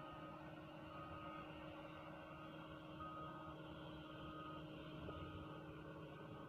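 Cat 306E2 mini excavator's diesel engine running steadily at a low level, with a short high beep repeating about once a second in the background.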